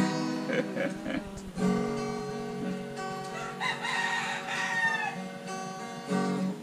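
Acoustic guitar playing plucked notes, with a rooster crowing once about three and a half seconds in.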